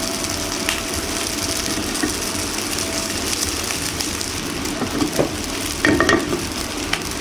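Oil sizzling steadily under a thin layer of yakisoba noodles pan-frying in a nonstick frying pan, as their second side is fried crisp. A few light knocks come in the last couple of seconds.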